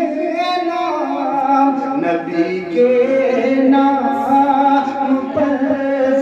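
A man singing a naat, an Urdu devotional poem in praise of the Prophet, into a microphone, drawing out long held notes that step up and down in pitch.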